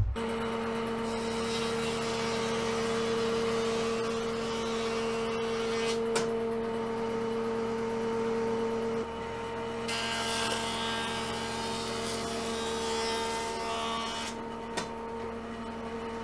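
Jointer running with a steady motor hum while a rough-sawn mahogany board is fed across the cutterhead to flatten one edge; the cutting noise is loudest from about ten to fourteen seconds in.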